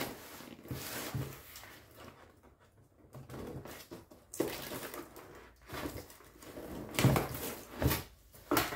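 A parcel being opened by hand: irregular scraping and rustling of the packaging, with a few sharp knocks, the loudest near the end.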